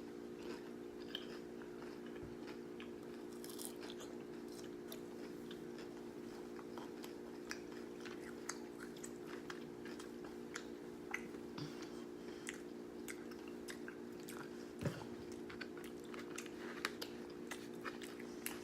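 Close-up crunchy chewing of nacho cheese Doritos nachos, with many small crisp crackles and bites scattered throughout. A steady low hum runs underneath.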